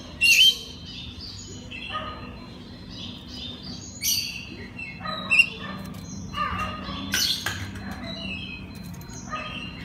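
Oriental magpie-robin (kacer) singing: a string of varied whistles, trills and harsh chirps, with several sharp, louder notes among them.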